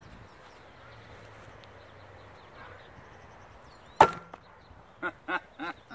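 Thrown knife striking a wooden target with a single sharp thunk about four seconds in, the steel blade ringing briefly after the hit.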